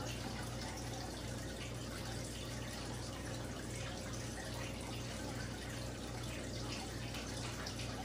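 Steady background hiss with a low electrical hum underneath and no distinct events.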